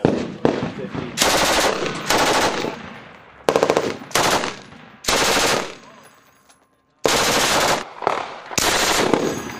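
M240 machine guns firing repeated short bursts of automatic fire, each about half a second long, with echo trailing after each burst.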